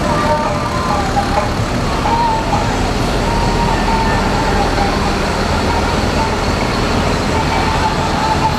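Diesel bus engines running with a steady low rumble amid general traffic noise.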